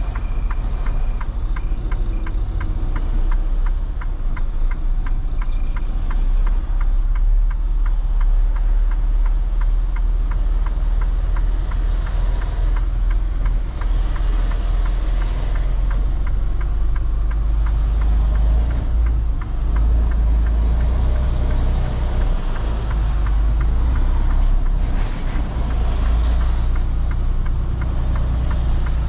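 Semi-truck diesel engine running, heard inside the cab as the tractor-trailer moves slowly through a lot: a steady low rumble with road and cab noise.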